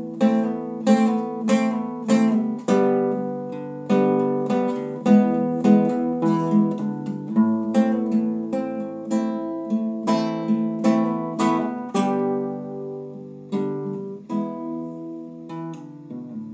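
Classical guitar played solo: strummed and plucked chords ringing out in a steady rhythm, the strokes growing sparser and quieter toward the end.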